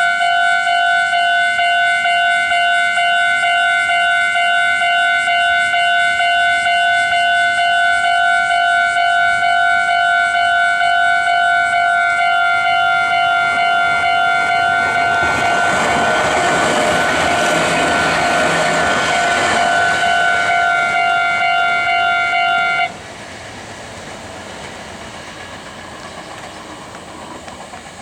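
Japanese level-crossing alarm ringing its rapid, steady electronic ding-ding as a Meitetsu 6500 series electric train rushes over the crossing about halfway through, in a swell of wheel and motor noise. The alarm cuts off suddenly a couple of seconds after the train has gone by, leaving a much quieter rumble.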